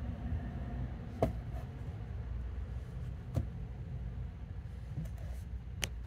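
Three sharp clicks, about a second in, a little past the middle and near the end, from a switchblade knife being handled, over a low steady rumble.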